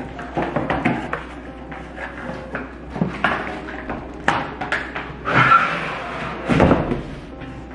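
Items and packaging being handled during an unboxing: a run of irregular knocks and clicks, with a rustle a little past halfway.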